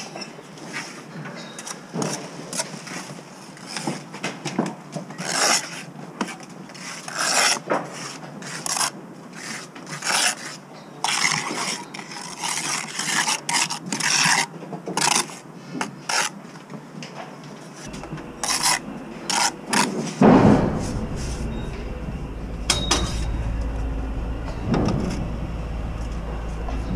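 Bricklaying work on a scaffold: a run of uneven scraping and rasping strokes with light clinks of tools and materials. About twenty seconds in there is a loud bump, then a steady low rumble.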